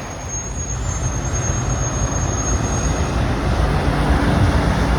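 Heavy road traffic with semi trucks running: a steady low rumble that builds gradually louder over the last couple of seconds.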